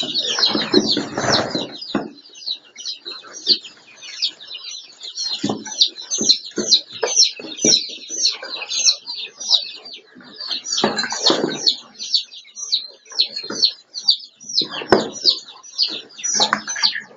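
Quail chirping: a dense, rapid run of short high-pitched chirps, with repeated lower noisy rustling bursts, the loudest about a second in and again near eleven and fifteen seconds.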